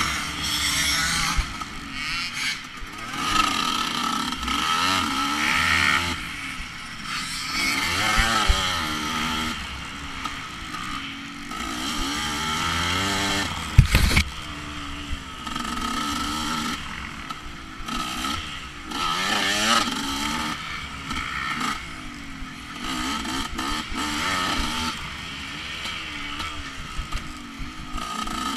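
Dirt bike engine revving up and down again and again under throttle while being ridden off-road, with a sharp knock about halfway through.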